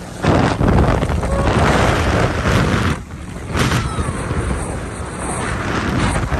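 Wind buffeting the microphone of a phone on a speeding jet ski, over the watercraft's engine and rushing spray. It is loudest for the first three seconds, drops sharply about three seconds in, flares again briefly, then settles to a steadier rush.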